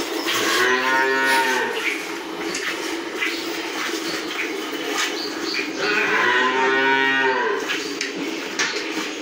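Cow mooing twice, each a long call of about a second and a half that rises and then falls in pitch; the second comes about five seconds after the first.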